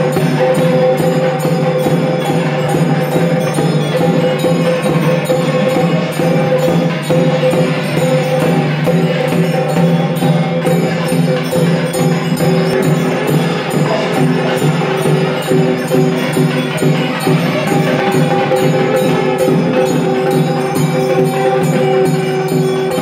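Live South Indian temple music: steady held, droning notes over a fast, continuous beat of drum and jingling metal percussion.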